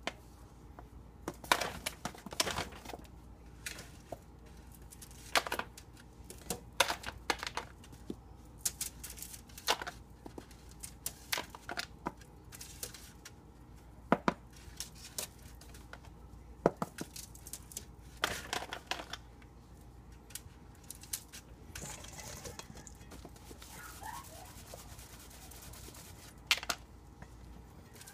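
Aluminium foil on a baking sheet crinkling, and a plastic tub being knocked, as flour-coated zucchini sticks are tapped off and laid down one at a time. The sound comes as irregular sharp taps and short rustles.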